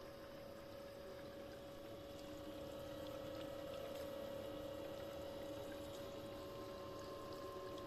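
Water-cooling pump of a custom-loop PC running with a steady hum and a held tone, with coolant moving through the loop.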